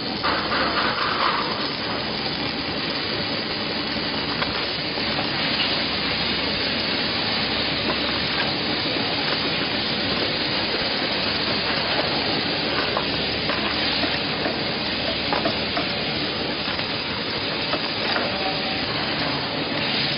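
Automatic welding robot's arc crackling and sizzling steadily.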